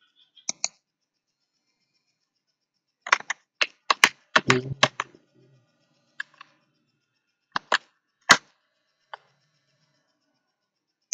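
Computer keyboard keystrokes while code is edited: a quick run of several taps about three to five seconds in, and single taps before and after.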